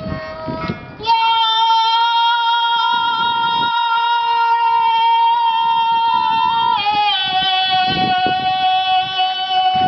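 A woman singing long held high notes: one steady note for about six seconds, then a slide down to a lower note held to the end.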